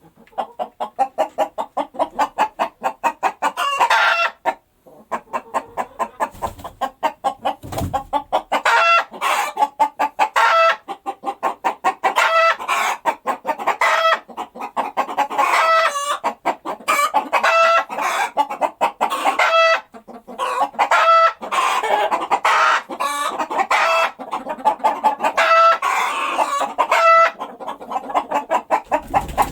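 Hens clucking rapidly and continuously, with a short higher-pitched cackling call breaking in every second or two.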